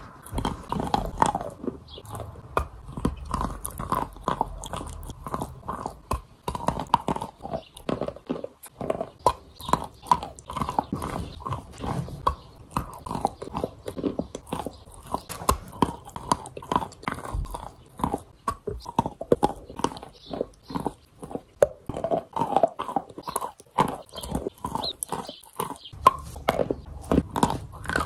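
Close-up biting and chewing of a block of «Я» chalk coated in paste, giving repeated crisp crunches about one or two a second.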